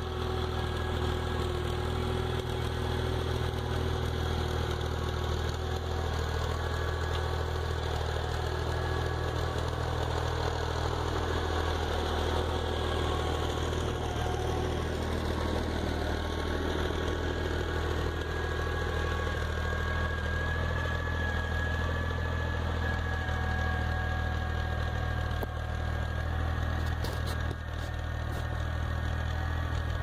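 Farm tractor's diesel engine running steadily, a deep, even hum.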